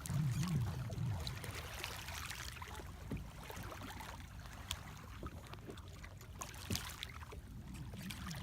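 Water splashing and trickling as a Sun Dolphin Excursion kayak is paddled, with a few light knocks. A low warbling hum rises and falls repeatedly during the first second.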